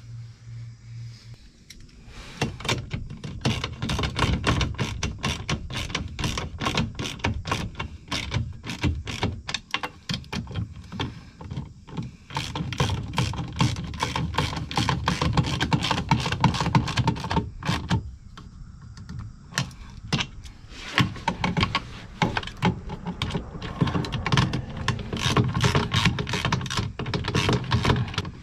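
Ratchet wrench clicking rapidly in long runs as the bolts of a new RV waste tank valve are snugged down. It pauses for a couple of seconds a little past the middle.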